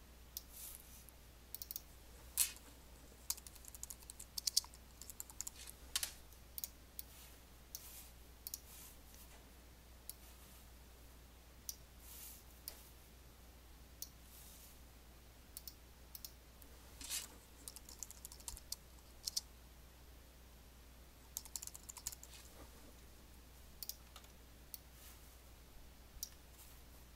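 Computer keyboard typing and mouse clicking in scattered short runs, over a faint steady low hum.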